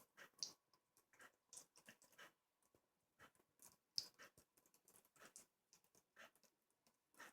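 A pet lapping at water: faint, short, irregular wet clicks, one to three a second, with a louder one about four seconds in.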